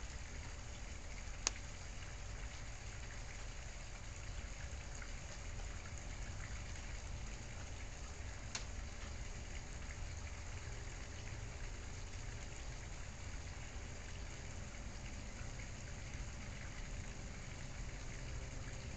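Steady hiss with a low rumble, broken by a sharp click about a second and a half in and a fainter one about eight and a half seconds in.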